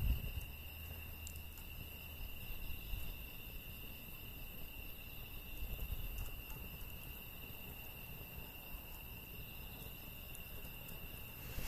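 Steady high-pitched insect chorus, cricket-like, with a few faint scattered crackles from the burning firewood.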